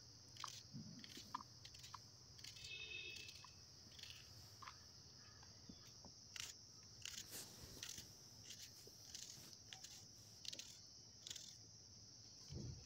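Faint crisp crunches of a knife slicing through raw onions held in the hand, short irregular cuts scattered throughout.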